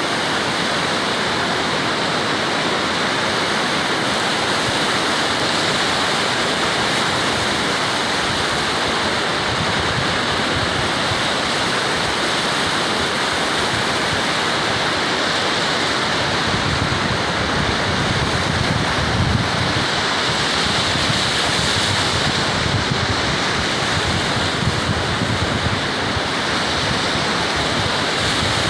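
Steady roar of ocean surf breaking, with wind buffeting the microphone, the buffeting heavier from about halfway through.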